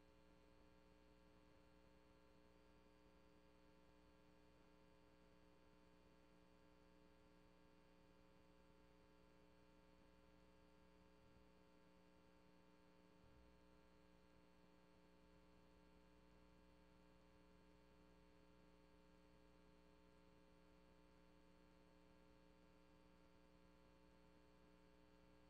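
Near silence: only a faint, steady electrical hum with no speech, on a recording whose sound was not captured.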